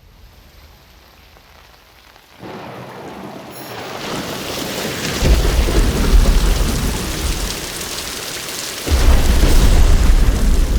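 Rainstorm: rain comes in about two seconds in and grows heavier, with two long rolls of thunder, the second starting near the end.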